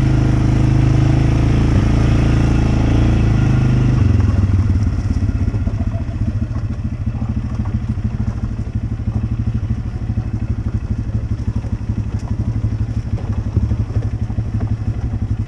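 Off-road vehicle engine running at steady throttle, then easing off about four seconds in to a lower, evenly pulsing run.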